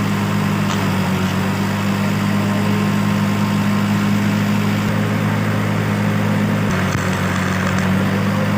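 Stick (arc) welding machine running with a steady low hum, an even hiss over it.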